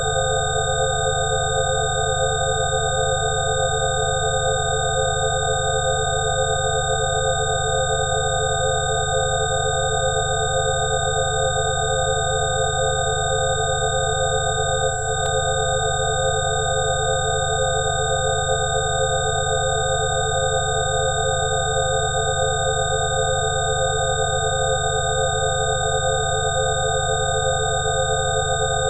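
Synthesized 'healing frequency' tones: several steady electronic tones at different pitches held together without a break, over a low hum. The middle tones waver slowly, and a faint click comes about halfway through.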